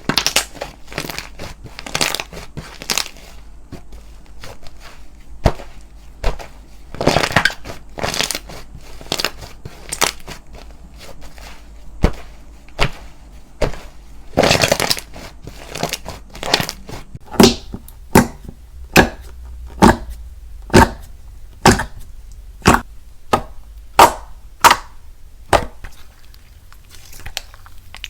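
Slime being squeezed and poked, giving crackling crunches and sharp pops. Past the middle, a steady run of loud pops comes about once a second, then it thins out near the end.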